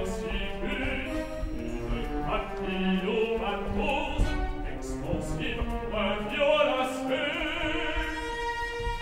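A male opera singer sings French text over an orchestral accompaniment.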